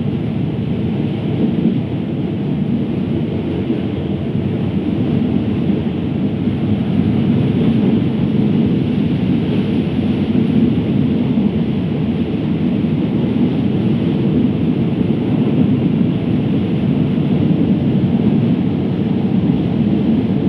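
Train running, heard from on board: a steady, unbroken low rumble.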